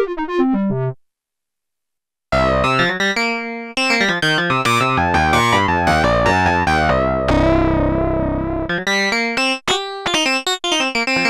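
Sequential Prophet 10 analog polysynth played straight from its audio output: a falling run of short notes ends about a second in, then after a brief silence a new factory preset sounds in quick short notes and chords over a bass line, with a held chord in the middle.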